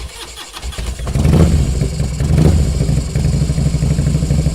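Harley-Davidson Road King Custom's V-twin engine starting: the starter cranks briefly, the engine catches about a second in, revs up twice and settles into a steady idle.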